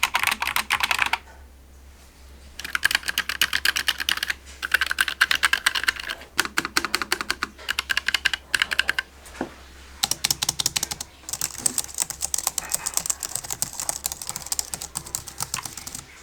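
Fast typing on computer keyboards in several separate runs with short pauses between them, the last and longest run sounding brighter than the earlier ones: a sound test of the Keychron K5 Pro low-profile mechanical keyboard set against a SteelSeries Apex Pro TKL and a Logitech MX Keys.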